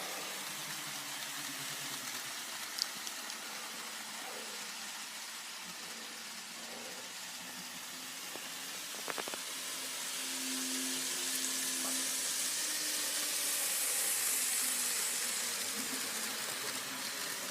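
Model trains running on N-scale track: a steady, faint hiss of small electric motors and wheels on the rails. It grows louder a little past the middle, then eases off.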